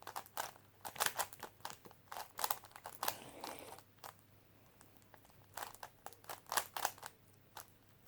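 GAN 3x3 speedcube being turned fast: bursts of quick plastic clicking and clacking as the layers are flicked, with a pause of about a second and a half near the middle.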